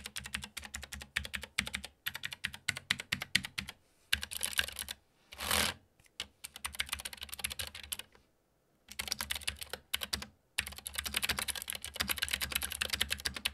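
Typing on an Epomaker GK96S full-size mechanical keyboard: rapid runs of clicky, clacky keystrokes with long switch travel, broken by a few short pauses. About five seconds in there is a brief burst of hiss.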